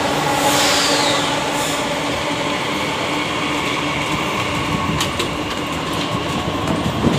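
Metro train running along an underground station platform: a steady rumble and hum, with a high whine falling in pitch about half a second in.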